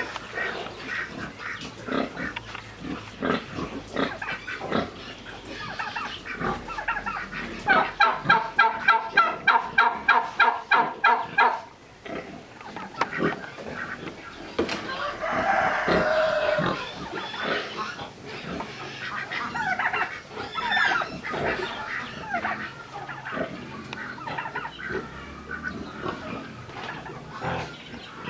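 Chickens clucking and calling, with a loud, rapid run of repeated calls, about three or four a second, from about eight seconds in that lasts some four seconds.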